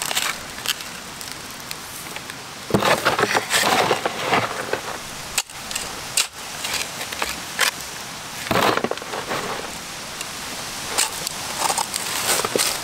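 Shovel scooping soil and scraping it into the hole around a cardboard concrete pier tube form, the backfill dirt falling in. There are three bursts of shovelling a few seconds apart.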